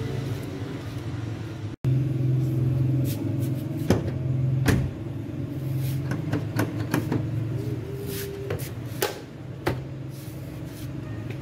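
Car door handle and side mirror being tried by hand: a few sharp clicks and knocks over a steady low hum.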